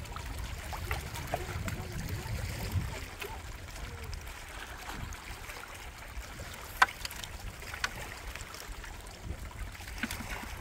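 Small waves lapping against a rocky lakeshore, with a low rumble in the first three seconds. A sharp click about seven seconds in, then a softer one a second later.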